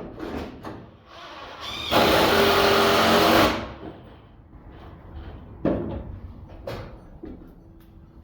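A handheld power tool runs hard for about a second and a half, starting about two seconds in. Two sharp knocks follow a few seconds later.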